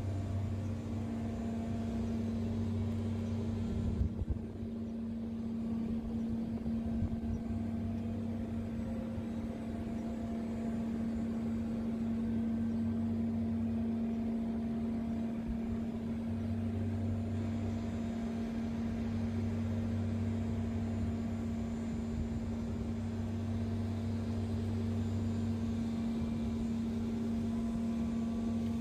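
YORK screw chiller with a variable-speed drive running: a steady machine hum with one strong held tone, and a lower hum that fades and comes back several times. A brief bump about four seconds in.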